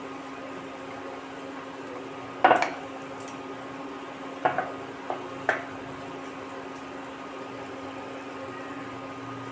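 A wooden rolling pin rolls out a thin sheet of dough on a round wooden rolling board. The wood gives a few sharp knocks, the loudest about two and a half seconds in, over a steady low hum.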